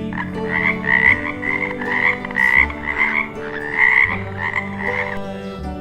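A frog croaking in a quick, steady run of calls, about three a second, that stops about five seconds in.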